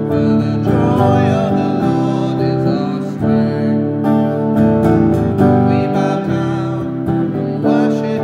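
Clean electric guitar strummed in steady chords as accompaniment to a worship song, with a man singing along at times.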